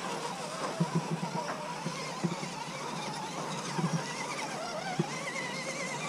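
Electric motors and gears of 1/10-scale RC rock crawlers whining as they drive through sand, the pitch wavering up and down with the throttle. Several short clicks and knocks come through along the way.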